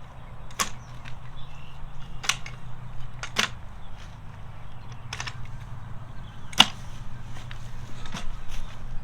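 A series of about six sharp knocks or cracks at uneven gaps of one to two seconds, the loudest a little past the middle, over a steady low hum.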